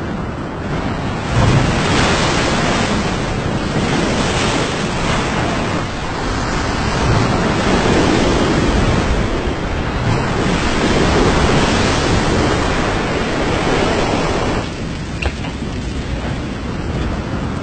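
Storm noise of wind and surf: a loud rushing that swells and eases in long surges, dropping off suddenly a few seconds before the end.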